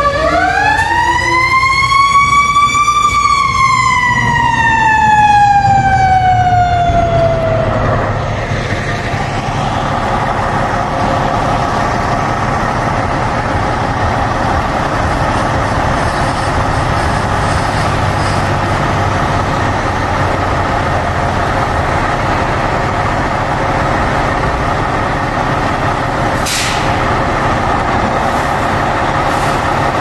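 Fire engine siren wailing, rising once and then falling away over several seconds until it fades out about eight seconds in. After that, a fire truck's diesel engine idles steadily, with a short hiss near the end.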